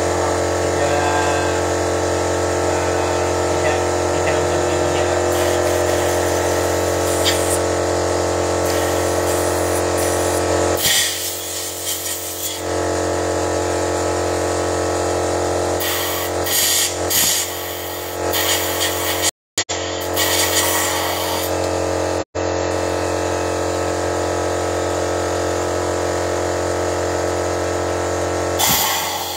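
Car engine running at a steady idle, a constant buzzing hum, during an engine carbon-cleaning flush. Several short bursts of hiss break in on top of it.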